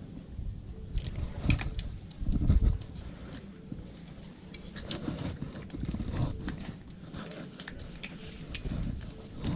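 Handling noise close to the microphone as hands work a fish and fishing tackle: irregular clicks and knocks over a low rumble, with the loudest thumps about a second and a half and two and a half seconds in.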